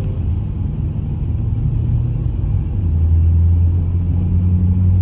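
Car driving, heard from inside the cabin: steady engine and road rumble that grows louder about halfway through.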